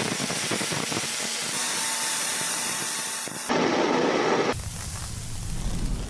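Power tool's sanding disc grinding rusty steel: a steady hissing grind that changes abruptly twice, loudest for about a second starting three and a half seconds in.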